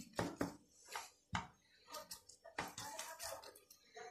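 A hand patting and smoothing the liquid egg, milk and oil mixture over phyllo pastry sheets in a metal baking tray: a run of short, irregular soft wet pats and taps.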